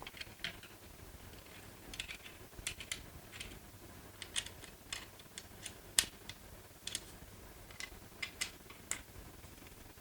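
Allen wrench turning out the screws of a FAB Defense GL-Core CP cheek rest: faint, irregular light clicks and ticks of the small hex key working against the screws and the polymer stock.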